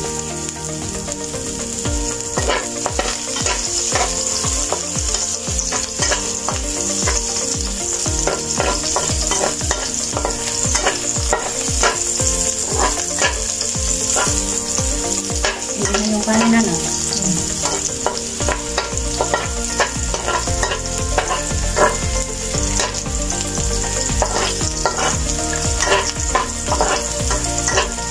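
Chopped garlic sizzling in hot oil in a dark pan, stirred with a spatula that scrapes and taps against the pan over and over.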